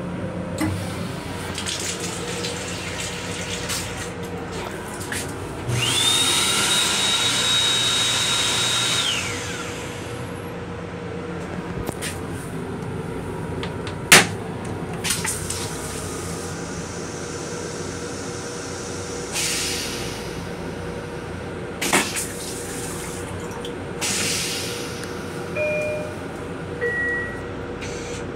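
The M7 railcar restroom's hand dryer runs for about three seconds, a rushing blow with a high whine that rises as it starts and falls away as it stops. Later comes a single loud sharp bang at the stainless toilet as it is flushed, followed by a few brief rushing sounds. The steady hum of the moving train runs underneath.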